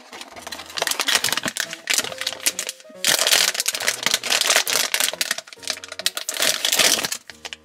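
Blind-bag toy packaging being torn open and rustled, a dense irregular crackle of handling noise, busiest from about three seconds in. Quiet background music plays underneath.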